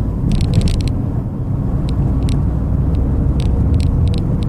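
Road and engine noise heard inside the cabin of a Chevrolet Celta 1.0 on the move, a steady low rumble. Irregular clusters of light, sharp clicking rattles sound over it several times.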